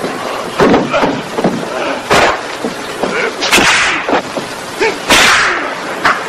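Martial-arts film fight sound effects: a string of sharp punch and kick hits, the four loudest spaced about a second and a half apart, with smaller hits between them.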